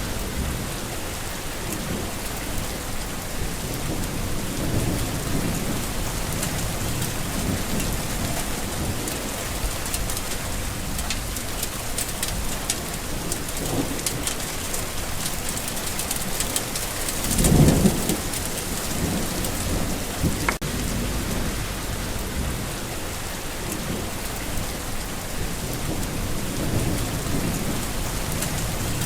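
Steady heavy rain falling on surfaces, with low rolling thunder underneath. A louder roll of thunder swells and fades a little past halfway.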